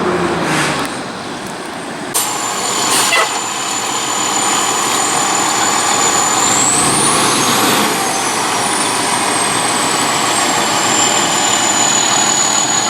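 Heavy fire truck's engine slowing down as the truck pulls up, then running steadily, with two sharp knocks about two and three seconds in. A thin high whine rises and falls back about halfway through.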